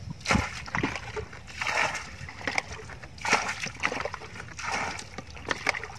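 A plastic bucket scooping and tossing muddy water from a shallow pool, bailing it out. Each scoop and throw is a swish and splash, repeating about every second and a half.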